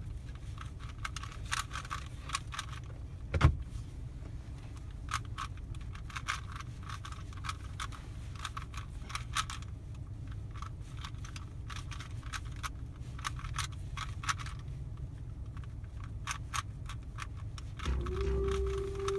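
Rubik's cube being turned fast: a rapid, irregular run of light plastic clicks from the layers snapping round, over a low steady car-interior rumble. One louder knock about three and a half seconds in, and music starts near the end.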